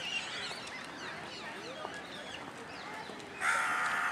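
Many birds chirping and calling at once in short rising and falling notes. A loud honk lasting under a second cuts in near the end.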